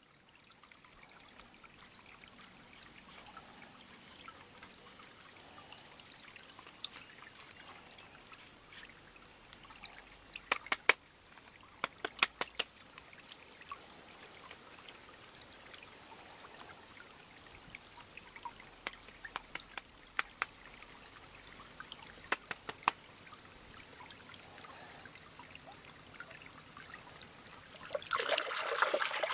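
Toy and packaging handling: soft rustling with scattered sharp clicks in small clusters, then louder rustling near the end.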